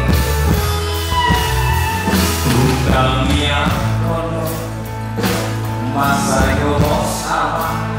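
A man singing a song into a handheld microphone over instrumental accompaniment.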